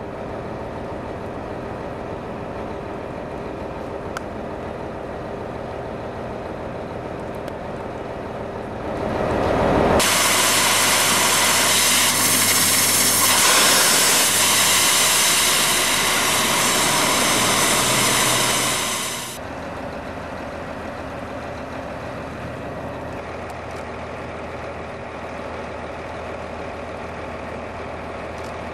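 Ultra-high-pressure water-jetting pump unit running steadily. About nine seconds in, the 40,000 psi water jet opens up with a loud, even hiss for about ten seconds as it swipes across the armor sample on the test rig, then cuts off suddenly, leaving the pump unit running.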